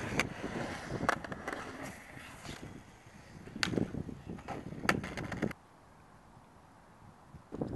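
Skateboard knocking on concrete: a few sharp clacks of the tail and wheels as the board is flipped and kicked up, over a rough background rumble. The sound drops almost to silence about two-thirds of the way through.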